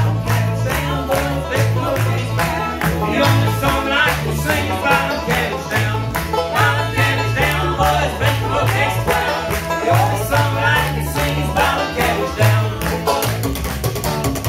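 Bluegrass band playing an upbeat fiddle tune: banjo, mandolin, fiddle, guitar and upright bass, with the bass walking steady notes under the picking. Several voices sing together.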